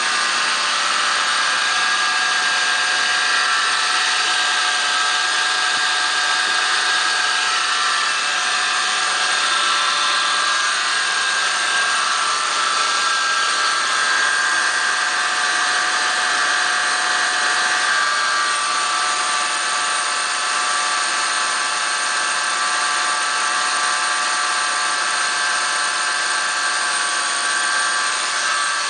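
Toyota 4Runner 1GR V6 engine running, with a steady whine from under the hood made of several high, even tones over the engine noise.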